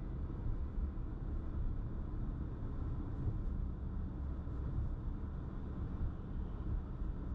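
Steady low rumble of a car driving slowly: road and engine noise heard from inside the cabin.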